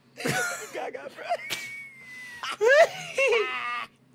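A man's high-pitched, strained laughter and squealing wails as he tries to hold the laugh in, breaking off sharply just before the end.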